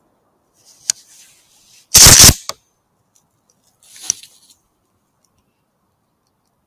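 Handling noise close to a thermal riflescope's built-in microphone as the scoped shotgun is moved: a sharp click about a second in, a very loud short bang at two seconds followed by another click, and a fainter knock with a click near four seconds.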